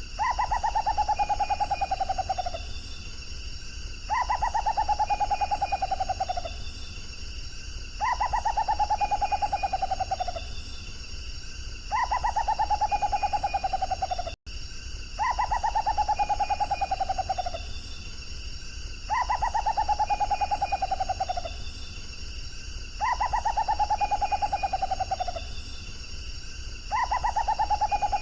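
Rufous potoo singing: a slow, mournful whistle that slides downward, each about two and a half seconds long, repeated about every four seconds.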